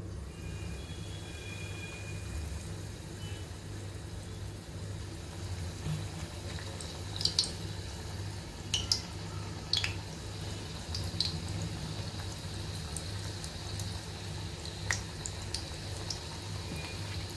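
Hot oil in a kadhai sizzling as lumps of coriander fritter batter are dropped in to deep-fry, over a low steady hum. Sharp crackling pops from the frying come several times from about seven seconds in and once more near the end.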